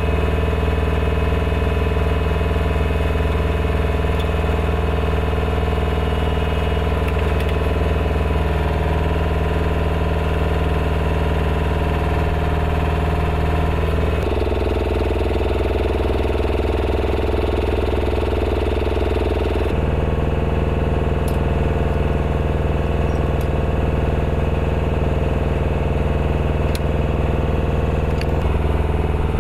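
Diesel engine of a munitions lift truck (bomb loader) running steadily at idle. It gives a constant low hum whose tone shifts abruptly twice, about 14 and 20 seconds in.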